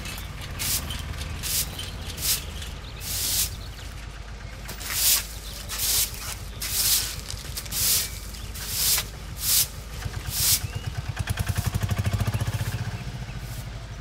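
A broom sweeping a dusty, gritty road in repeated swishing strokes, about one a second. Near the end a vehicle engine passes close, swelling and then fading.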